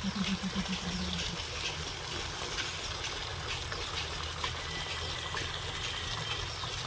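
Water running steadily from a pipe tap into a full plastic bucket and spilling over its rim onto stone, a continuous splashing trickle. Under it runs the low steady hum of the engine pumping the water, with a short pulsing hum that fades out about a second in.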